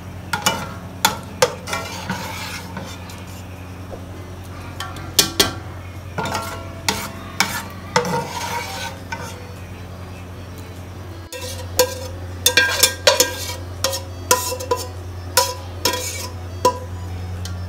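Metal ladle scraping and clanking against an aluminium cooking pot while scooping out thick chicken masala, in two runs of quick ringing knocks, over a steady low hum.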